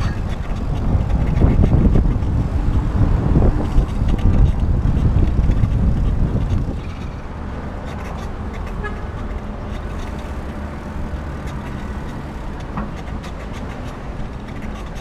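Wind buffeting the microphone of a handlebar-mounted camera on a moving bicycle, a heavy low rumble. About six and a half seconds in it drops to a quieter, steady riding noise.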